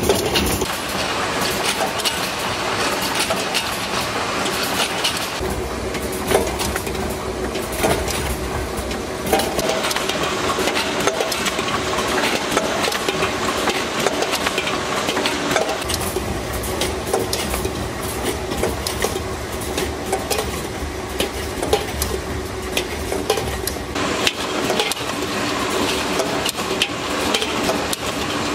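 Tinplate can production line machinery running, a steady mechanical din with dense, irregular clicking and clattering of metal parts and cans.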